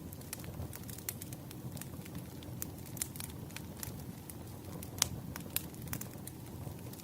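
Wood fire crackling: irregular pops and snaps over a low, steady rush, with one sharper pop about five seconds in.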